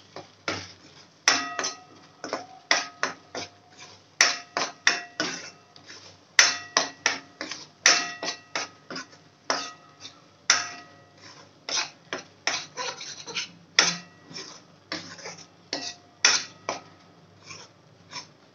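A steel spoon stirring thick masala paste in a metal kadhai, knocking and scraping against the pan about twice a second in an irregular rhythm. Many of the knocks leave a short metallic ring.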